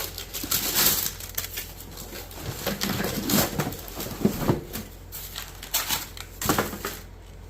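Packaging rustling and crinkling with knocks and short squeaks, irregular throughout, as the main body of a Dyson cordless stick vacuum is handled and lifted out of its box.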